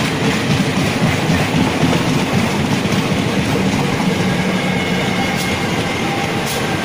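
Running noise of an electric MEMU train heard from on board: a loud, steady rumble of wheels on rail with fine clatter from the track.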